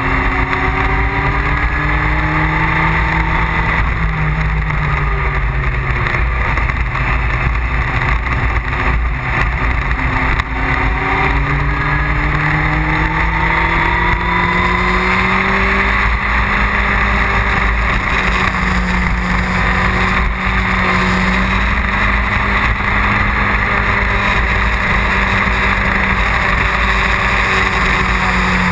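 Engine of the vehicle carrying the camera running under way, its pitch climbing slowly, dropping back about four seconds in, climbing again and then holding fairly steady. A constant rush of wind on the microphone runs underneath.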